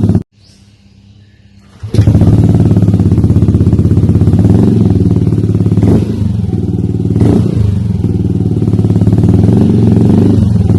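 Yamaha Aerox scooter's single-cylinder engine running steadily through a Triton Neuro carbon-Kevlar aftermarket exhaust, a deep, even note. The sound cuts out almost completely just after the start and returns sharply about two seconds in.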